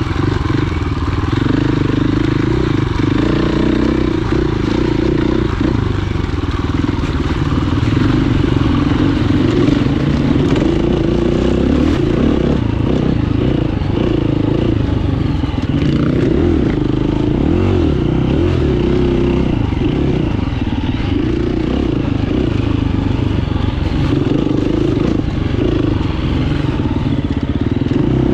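Dirt bike engine running under throttle, its revs rising and falling continually as the rider opens and closes the throttle, with rattling from the bike over rough ground.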